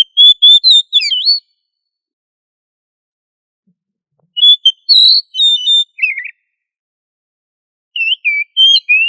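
Oriental magpie-robin (kacer) singing: three short phrases of varied clear whistled notes, each a second or two long, with pauses of about three seconds between them.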